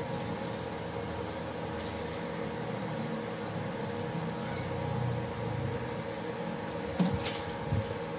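Steady fan-like mechanical hum, with a few soft clicks and a couple of sharp knocks about seven seconds in as shredded cabbage and carrots are slid off a plate into a pot of broth.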